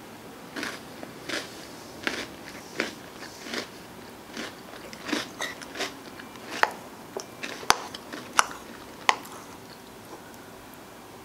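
Close-miked mouth sounds of eating ice cream with crunchy mix-ins: irregular chewing and crunching, with a metal spoon scooping in a plastic bowl. A few sharp, loud clicks come about two-thirds of the way through.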